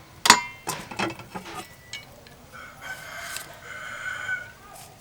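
A few sharp knocks near the start, then a rooster crowing one long call through the middle.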